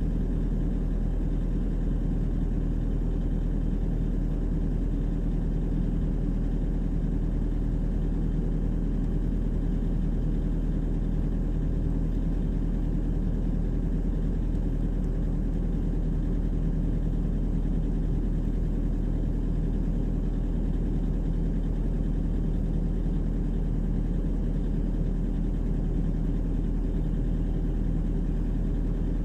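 Diesel engine of a Volvo EWR150E wheeled excavator running steadily, heard from inside the cab as a constant deep hum while the machine works.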